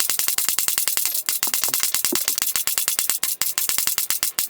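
Background music with a fast, even rattling beat like a shaker, about a dozen hits a second.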